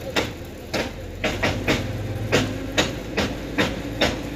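Recovery work on a truck in a ravine: a string of sharp knocks, irregular at roughly two a second, over the steady hum of a running engine.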